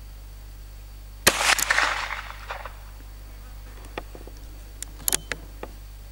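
A single .22 LR shot from a revolver-action carbine about a second in: a sharp crack with a trailing echo that dies away over about a second. A few faint sharp ticks follow near the end.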